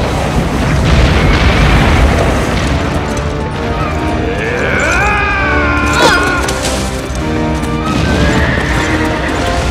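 Film sound effect of an avalanche: a deep, heavy rumble of snow, loudest in the first few seconds, mixed with dramatic orchestral score. There is a sharp hit about six seconds in.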